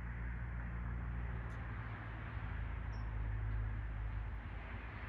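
Room tone: a steady low electrical hum under an even background hiss, with no breath sounds heard.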